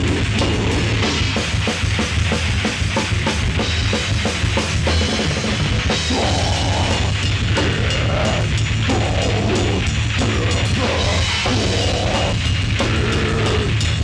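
Death metal band playing live: distorted electric guitar, bass guitar and a drum kit struck in fast, closely packed strokes, loud and unbroken.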